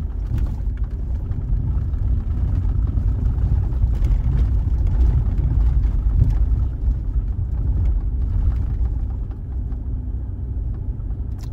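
Steady low rumble of a vehicle driving on a rough dirt road, heard from inside the cabin, with a few light knocks and rattles from the bumpy surface.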